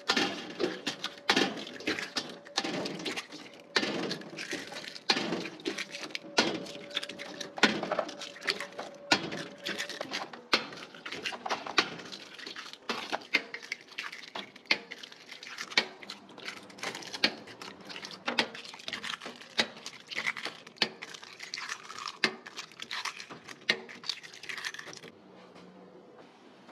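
Salted duck eggs being cracked by hand against a stainless steel bowl, one after another: sharp cracks and clinks of shell about once or twice a second. The cracking stops near the end.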